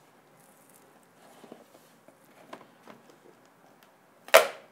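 Faint rubbing and light taps of hands working a rigid cardboard box lid open, then one sharp slap about four seconds in as the lid comes open.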